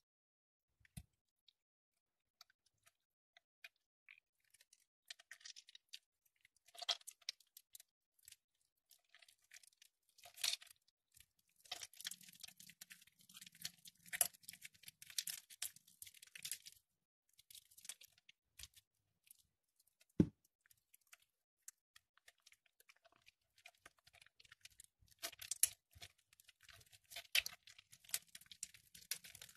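Hands squeezing and crumbling soft, water-soaked bars of soap: wet squishing and crackling, sparse at first, then in dense bursts. One sharp knock about two-thirds of the way through.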